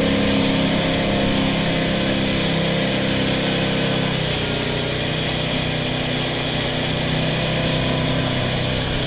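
Jet boat engine running steadily, its pitch dropping about four seconds in as it slows.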